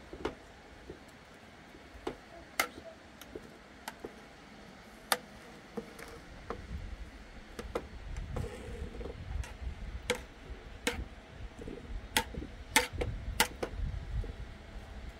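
Scattered sharp clicks and knocks at irregular intervals, over a low rumble that grows louder from about six seconds in.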